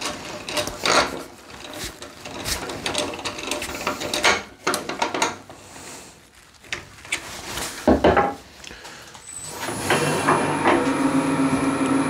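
Wooden bowl blank being handled and remounted on a lathe: scattered wooden knocks, clicks and rubbing, with one loud knock about eight seconds in. Near the end the Neureiter Twister XL lathe starts and runs with a steady hum and a faint high whine.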